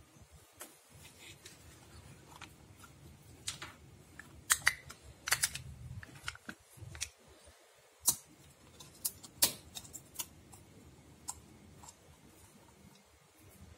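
Irregular sharp clicks and crackles of a plastic radiator-flush bottle being handled and opened, its cap twisted off and seal torn, loudest in a cluster about five seconds in and in single snaps near eight and nine and a half seconds.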